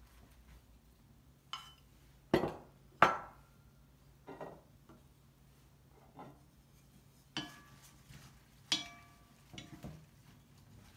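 Scattered knocks and clinks of wooden salad utensils against a glass bowl and of serving tongs and a spoon set down among ceramic plates, about nine in all at uneven intervals. The loudest, about three seconds in, and another near the end ring briefly.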